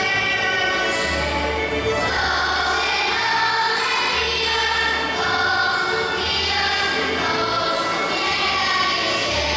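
A group of children singing a folk song together, with a live folk band behind them and a double bass playing a low bass line.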